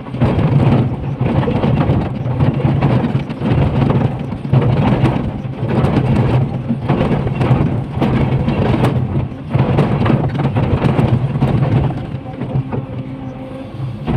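Komatsu PC500LC hydraulic excavator's diesel engine running under load as the bucket scrapes and breaks into a rock face, with rough surges of grinding and rock crunching and falling over the steady engine hum.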